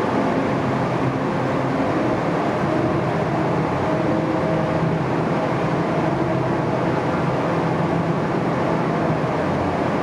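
Large boat-launching forklift running steadily, a constant engine drone with a low hum.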